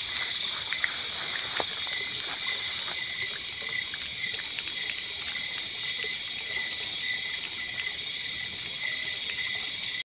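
Chorus of night insects: several steady high-pitched trills go on together, the lowest one pulsing near the end. A few light ticks in the first couple of seconds.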